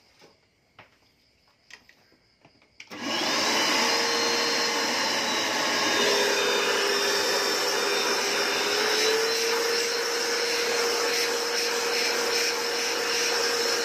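National canister vacuum cleaner switched on about three seconds in after a few light handling clicks, its motor running with a loud, steady whine. The whine drops slightly in pitch for a few seconds midway, then comes back up.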